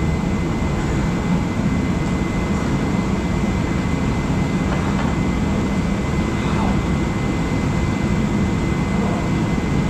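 Steady roar of a forced-air torpedo shop heater running.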